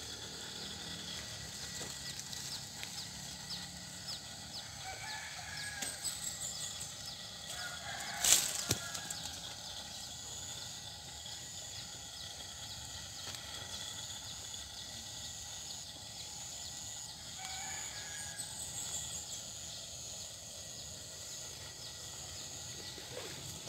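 Rural outdoor background: a steady high insect hum with scattered bird chirps and a few faint clucking calls from fowl. One short sharp noise stands out about eight seconds in.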